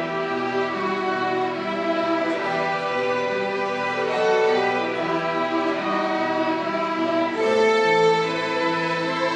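Violin ensemble playing a melody in held, bowed notes over a lower accompanying line.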